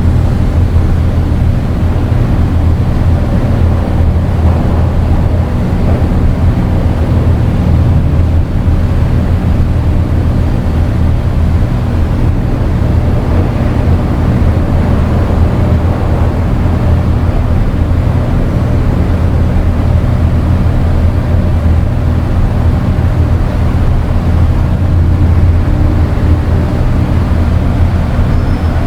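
Loud, steady dark ambient drone from synthesizers: a deep held low rumble of sustained tones under a rough wash of noise, unchanging throughout.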